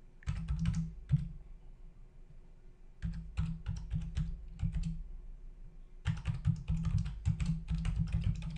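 Typing on a computer keyboard, keystrokes clicking in three bursts with short pauses between them, the last burst the longest.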